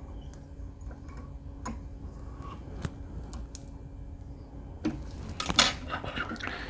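Small clicks and taps of hands and a whip-finish tool working thread at a fly-tying vise, scattered and faint, with a louder run of clicks about five seconds in, over a low steady hum.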